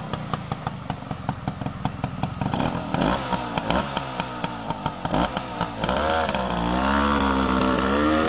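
Yamaha DT-1's 250cc single-cylinder two-stroke engine idling with a rapid popping beat. It is blipped a few times, then revs up and down more loudly as the bike pulls away.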